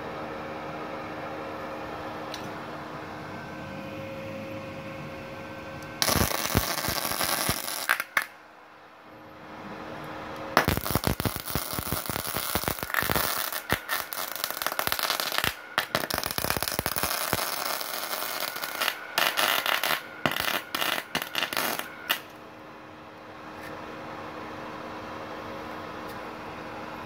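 MIG welding arc crackling and sputtering from a Multipro MIG-MMA/TIG 160 A-SC welder running 0.8 mm solid wire with shielding gas. A short weld starts about six seconds in and lasts two seconds, then a longer run of welding goes from about ten seconds in to past the twenty-second mark, broken by short gaps.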